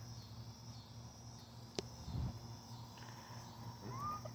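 Quiet background with a steady low hum, broken by a sharp click about two seconds in, a soft thump just after it, and a short faint rising chirp near the end.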